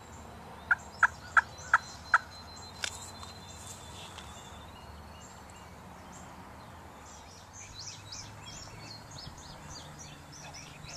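Turkey calling: a run of five evenly spaced notes about a second in, then a single faint click. Faint small-bird chirps come later.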